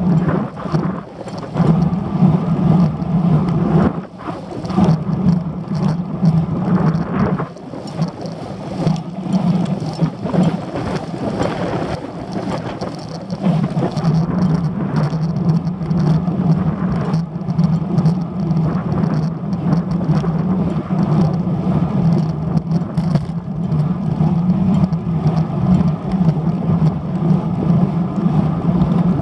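Wind rushing and buffeting over a handlebar-mounted camera's microphone on a moving road bike, over a steady low hum from the rolling tyres. It eases briefly about four seconds in and again a few seconds later.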